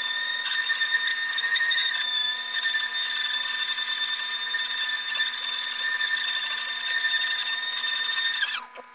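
Electric orbital sander running steadily with a high whine while sanding a plywood axe handle. Near the end it is switched off and the whine drops in pitch as it spins down.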